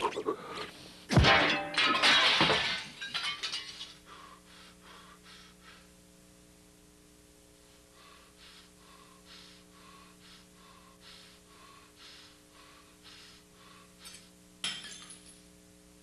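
A glass mirror shattering: a loud crash about a second in, then pieces tinkling as they fall. After that come faint, evenly spaced ticks over a low steady hum, and a short noise near the end.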